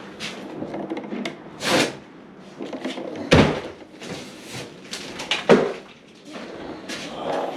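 Handling noise: rustling and clattering, with three louder knocks about two, three and a half and five and a half seconds in.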